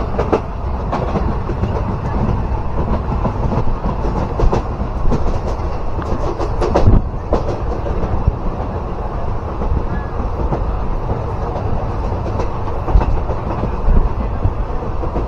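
Passenger train coach running at speed, with a steady rumble of wheels on the rails, heard from an open doorway. A few sharper clacks stand out, the biggest about 7 seconds in.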